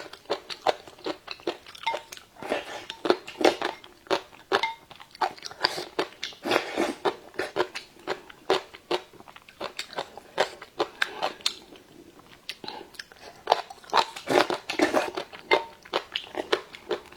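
Close-up crunchy chewing of crisp ginger-pickled radish strips: a rapid, irregular run of sharp crunches that thins out briefly about two-thirds of the way through.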